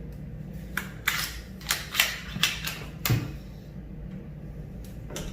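Plastic switch cover plate being handled and fitted over a paddle light switch: a quick series of sharp clicks and short scrapes, about six of them, between one and three seconds in.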